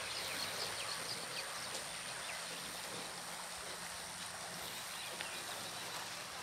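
Shallow river running over gravel and stones: a steady rush of water.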